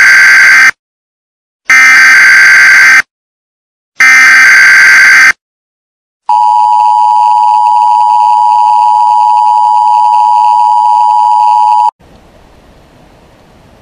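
Emergency Alert System SAME header: three short bursts of digital data tones about two seconds apart, then a steady attention tone for about six seconds that cuts off sharply, leaving faint hiss. This is the alert signal that opens a severe thunderstorm warning.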